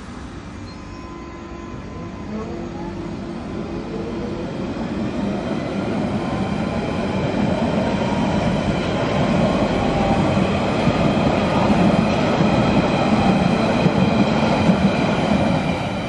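London Underground 1992 stock Central line train pulling away past the platform. A traction motor whine rises in pitch over the first several seconds, and the wheel and rail noise grows steadily louder to a peak near the end.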